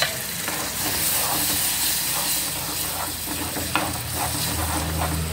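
Raw ground onion-tomato paste sizzling in hot spiced oil in a metal pan, while a metal ladle stirs it, scraping and clicking against the pan a few times.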